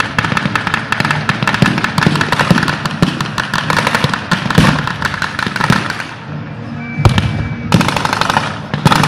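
Dense, rapid gunfire from rifles and machine guns firing blank rounds, a crackling stream of shots that thins out about six seconds in and then comes back in a few sharp bursts. Music plays underneath.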